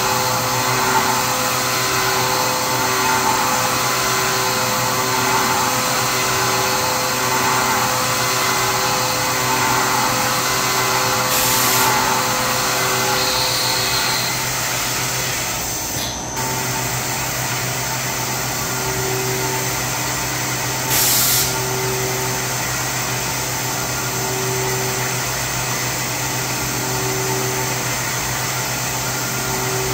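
Syil X7 CNC milling machine taking an end-mill cut, a steady machine drone over a low hum. The cutting noise pulses about once a second and slows to about one pulse every two seconds past the halfway point. Two short hisses break in, near the middle and about two-thirds of the way through.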